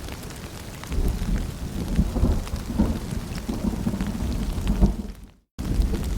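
Steady rain with many small drop ticks and a low, rolling thunder rumble that swells about a second in. The whole sound cuts out for a fraction of a second near the end, then comes back.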